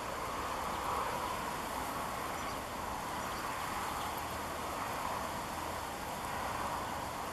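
Steady outdoor background hiss at an even level, with no distinct bird calls.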